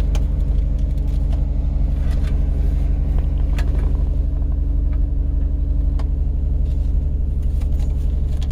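Nissan Murano's 3.5-litre V6 idling steadily, with a few faint clicks over it.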